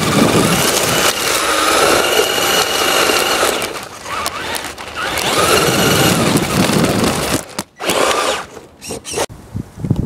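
The electric motor of a Traxxas Slash 2WD RC truck whines up and down with the throttle over loud rumbling tyre and road noise, heard from a camera mounted on the truck. The sound drops away and turns patchy in the last couple of seconds as the truck slows and stops.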